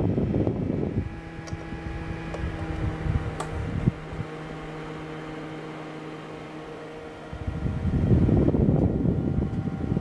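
Fan of a small portable evaporative air cooler running. There is a loud, rough rush of air in front of the grille for the first second. It then gives way to a quieter steady motor hum with a single click a few seconds in. The rush of air returns near the end.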